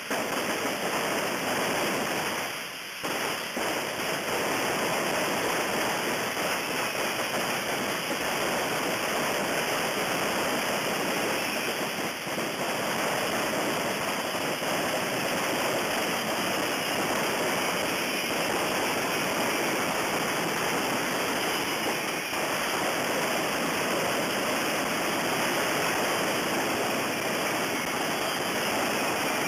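Dense, continuous hissing of many hand-thrown ground rockets (coets) spraying sparks at once, with a brief drop in level about three seconds in.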